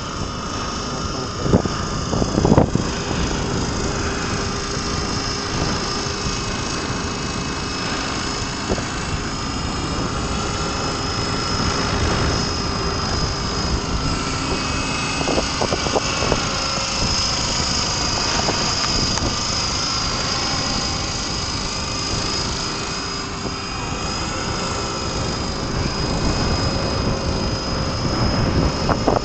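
Electric RC model plane's (Swift 16) motor and propeller whining steadily overhead, the pitch drifting gently up and down as it flies, over a heavy rumble of strong wind buffeting the microphone. Two sharp thumps come a couple of seconds in.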